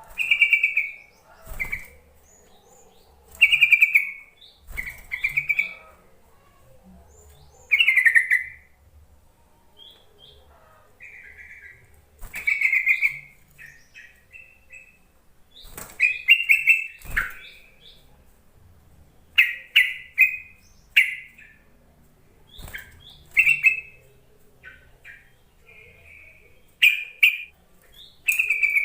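Yellow-vented bulbul calling: short bubbly chirping phrases, repeated every second or two with brief gaps. The recording is a call track used to prompt other bulbuls into singing.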